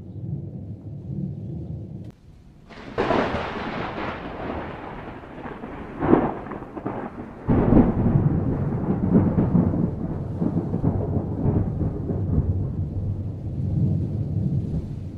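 Thunder: a low rumble, then about three seconds in a sudden crackling clap that rolls on, with further loud cracks near six and seven and a half seconds, settling into a long low rolling rumble.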